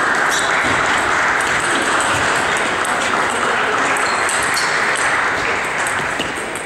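Spectators applauding in a sports hall after a point, a steady clatter of clapping that eases off near the end.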